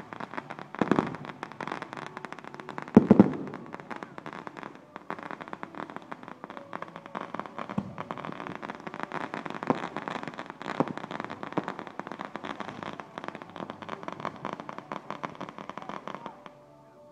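Fireworks going off: a dense, continuous crackling of many small rapid reports, with heavier bangs about one and three seconds in. The crackling cuts off shortly before the end.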